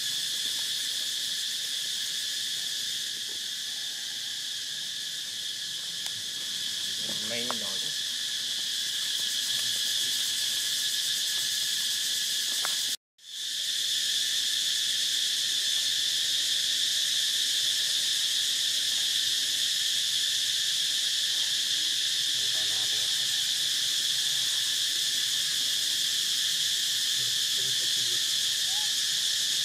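Steady, high-pitched chorus of insects droning evenly. A faint short call sounds about seven seconds in, and the sound drops out completely for a moment about thirteen seconds in, then resumes slightly louder.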